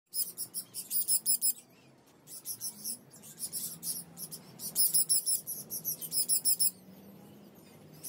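Small parrots chirping: rapid runs of short, high-pitched chirps, several a second, in three bursts, falling quiet about a second before the end.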